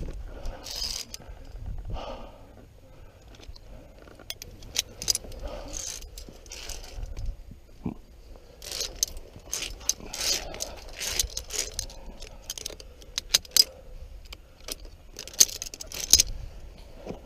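Metal via ferrata carabiners clinking and scraping along a steel safety cable as the climber moves, in many short irregular clicks that come thickest about halfway through and near the end.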